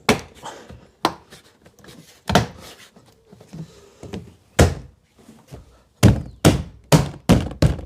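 Nissan Micra K12 door trim panel being thumped back onto the door, its plastic retaining clips snapping into place: a few separate thumps, then a quick run of five or six near the end.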